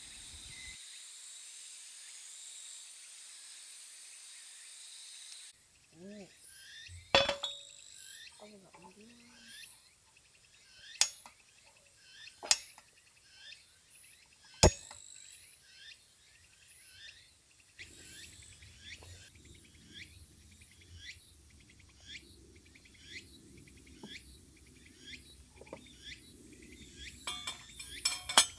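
Insects calling at a campsite: first a steady high drone, then, after a sudden change about five seconds in, regular short chirps. Four sharp clinks of tableware sound among the chirps in the first half.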